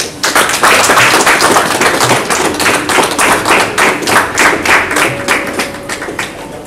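A group of people applauding, a dense patter of hand claps that starts just after the beginning and thins out near the end.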